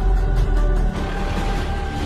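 Background music with sustained held tones. About a second in, the deep bass drops away and a noisier, hissy texture comes in under the music.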